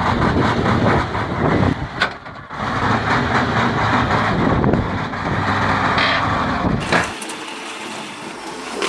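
Heavy truck engine running as the overloaded truck crawls along, with a few sharp knocks. About seven seconds in the engine sound cuts off abruptly and a thinner, quieter machine sound follows.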